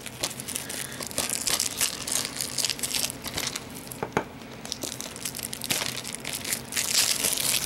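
Plastic shrink-wrap crinkling and tearing as it is peeled off a Blu-ray case, a run of crackles that grows louder near the end.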